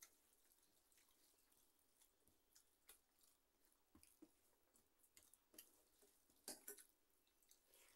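Near silence with faint scattered clicks and soft squishes: fingers mixing rice and dal on steel plates, with quiet chewing, and a slightly louder pair of clicks about six and a half seconds in.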